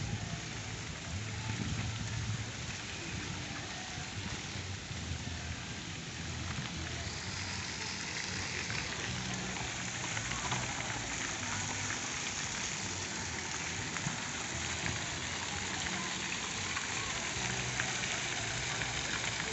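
Water jets of a large tiered fountain splashing down into its basin: a steady rush of falling water that grows a little louder about halfway through.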